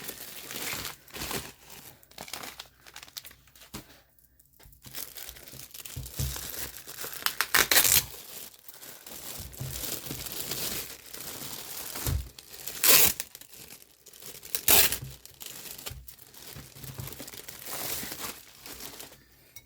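Package wrapping being torn open and crinkled by hand: irregular rustling with several short, louder rips, the loudest about 8, 13 and 15 seconds in.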